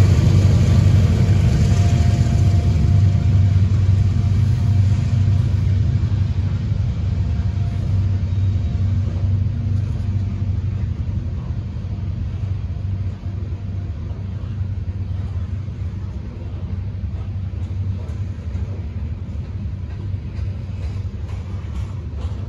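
Loaded coal train's hopper cars rolling past on the rails, a steady low rumble that gradually grows quieter.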